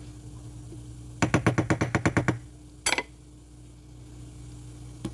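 A fast run of about a dozen sharp clicks, roughly nine a second, at the stovetop, then a single short knock about a second later. A steady low hum runs underneath.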